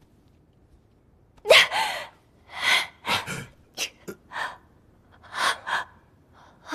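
A woman gasping in pain, a string of sharp, breathy intakes and exhalations starting about a second and a half in, the first with a brief cry in it, as her injured leg is handled.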